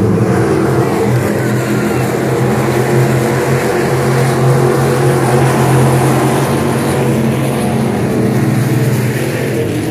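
Crate Sportsman dirt-track race cars running at racing speed around the oval, their crate V8 engines making a loud, steady drone that swells a little in the middle as the pack goes by.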